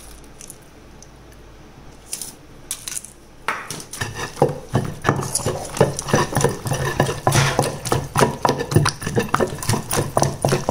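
Wooden pestle pounding wet peanut chutney in a stone mortar, working in freshly added salt. A few light knocks come about two seconds in, then quick repeated pounding strokes from about three and a half seconds in.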